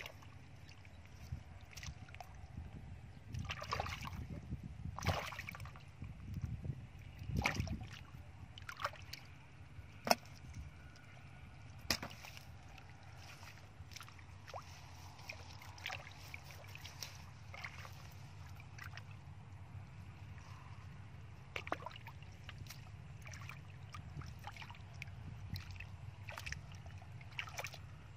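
Hands groping and splashing in shallow muddy water: irregular sloshes and sharp little splashes, busiest and loudest in the first eight seconds, over a steady low rumble.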